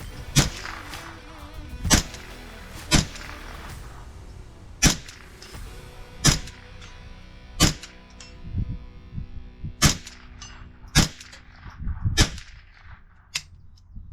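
Gunshots fired one at a time, about ten sharp reports spaced irregularly a second or two apart, over background music.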